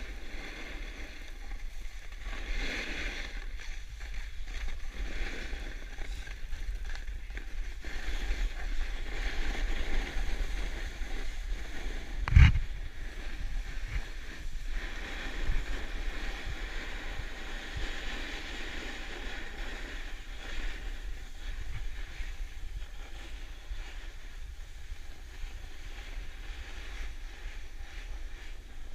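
Wind rushing over a GoPro Hero4's microphone, with edges hissing and scraping over groomed snow on a downhill run. There is a sharp thump about twelve seconds in and a couple of lighter knocks soon after.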